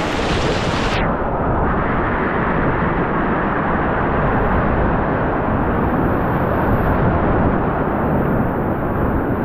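Whitewater rapids rushing loudly around a solo open canoe. About a second in, the sound turns abruptly muffled into a dull, deep, steady rumble.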